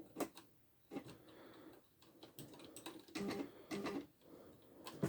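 Smith Corona electronic typewriter being operated: faint, irregular key clicks and short mechanical clicking runs from the print mechanism, in a few scattered groups.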